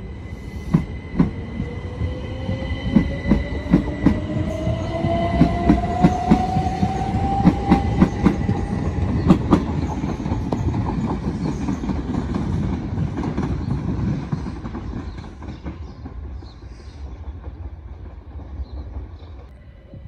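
Southern Class 377 Electrostar electric multiple unit pulling out and accelerating past: its traction motors give a whine that rises steadily in pitch over the first nine seconds or so, while the wheels clack in a quick run over the rail joints. The sound then fades as the train draws away.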